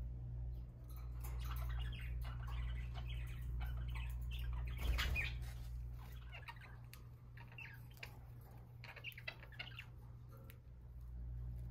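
Budgerigars chirping and chattering: a flurry of short chirps, busiest and loudest about five seconds in, over a low steady hum.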